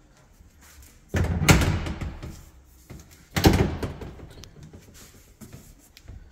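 Interior doors being handled and shut: two loud thuds about two seconds apart, each followed by a short rumble that fades out.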